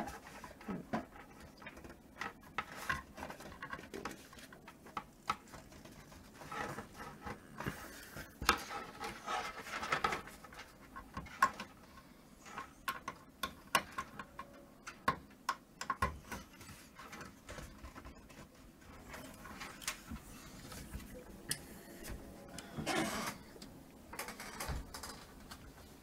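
Handling noise from a front-panel USB cable and connector being worked onto a motherboard header inside a PC case: scattered small clicks, taps and rubbing of cable and plastic.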